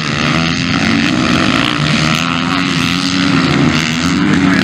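Motocross bikes' engines running loud on a dirt track, their pitch rising and falling as the riders rev through a corner.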